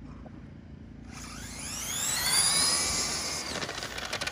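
Two electric RC drag cars launching and running down the track: their brushless motors' whine starts about a second in and rises steeply in pitch, loudest about halfway through, then turns into a rapid pulsing near the end.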